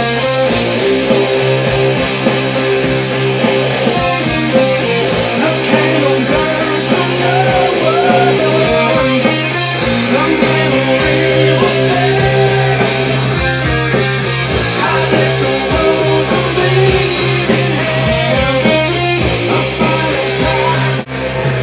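Loud guitar-driven rock music over a sustained low bass note, breaking off briefly near the end.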